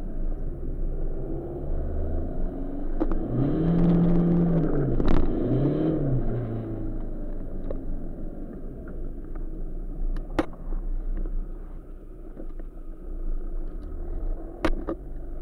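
Tuned Seat Ibiza TDI turbodiesel engine running while driving, heard from inside the cabin. Its pitch rises and falls twice a few seconds in as the revs climb and drop, with a few sharp clicks or knocks scattered through.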